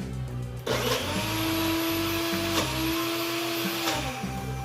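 A NutriBullet-style personal blender runs, grinding laksa paste ingredients (garlic, ginger, onion, chilli). Its motor starts with a steady whine about a second in, breaks off briefly midway and stops near the end. Background music plays underneath.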